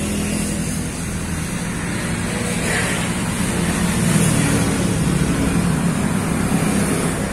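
A motor vehicle engine running, a steady low hum with traffic noise that swells slightly around the middle.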